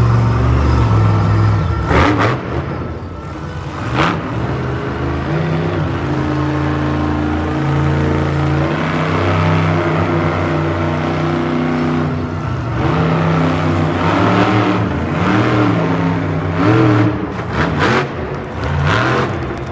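Monster truck's supercharged V8 engine revving hard, its pitch stepping up and down as the throttle is worked. Sharp bangs come about two and four seconds in, with more near the end.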